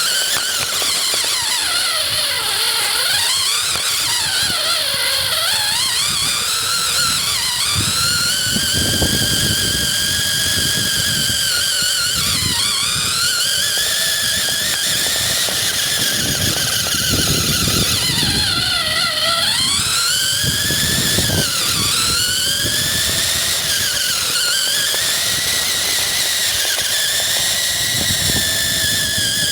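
A toy RC car's motor and gears whining, the pitch rising and falling again and again as the throttle is worked, with several sharp drops and recoveries. Now and then a low rumble joins it.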